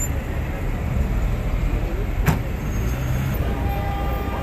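City street ambience: a steady rumble of road traffic from cars and buses, with one sharp click about halfway through.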